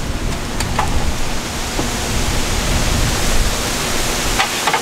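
Strong wind blowing across the microphone, a steady rushing noise heaviest in the low end, with a couple of faint knocks from work on the roof framing about a second in and near the end.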